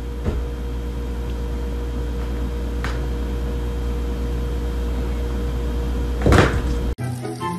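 A steady low mechanical hum, with a couple of faint clicks and a short loud clunk about six seconds in. The hum cuts off abruptly near the end.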